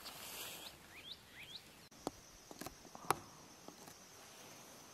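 Brush-country wildlife: three quick rising chirps, like a bird's, in the first second and a half, then a steady high insect trill. A few sharp clicks sound through the trill, the loudest about three seconds in.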